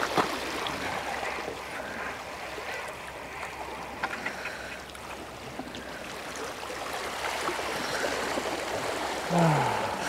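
Small waves lapping and trickling against a rocky, weed-covered shoreline, a steady wash with small splashes and ticks. A brief low voice sound, falling in pitch, comes near the end.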